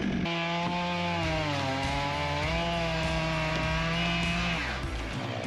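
Two-stroke chainsaw running at full throttle in a cut through a big trunk, its engine note sagging a little under load in the middle and then picking back up, before dying away near the end.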